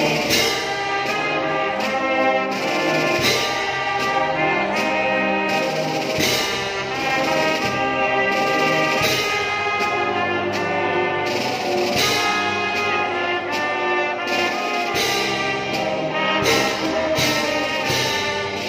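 Brass band playing, with several brass instruments holding and changing notes together, a tuba among them.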